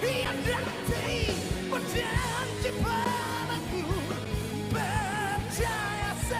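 Pop-rock song with a male lead vocal singing over a full band with drums and bass, with a steady beat.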